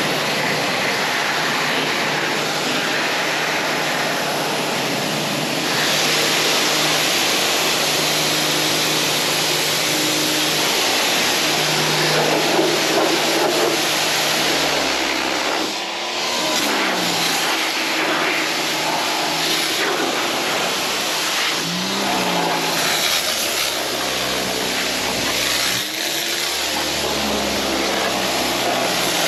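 Pressure washer running continuously, its high-pressure water spray hissing steadily against the truck cab's interior. Under the spray is a steady machine hum that dips and recovers in pitch a few times in the second half.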